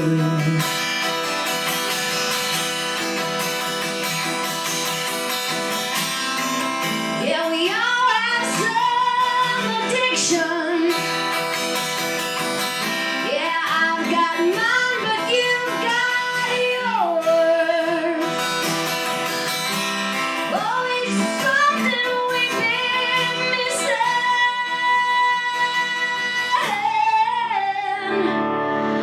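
Acoustic guitar music, played live, with a melody line of long held notes that slide into pitch laid over the chords, in a stretch without lyrics.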